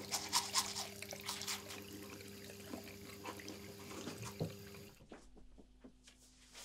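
Toothbrush scrubbing teeth in quick back-and-forth strokes. It stops abruptly about five seconds in, and fainter rustling of clothing follows.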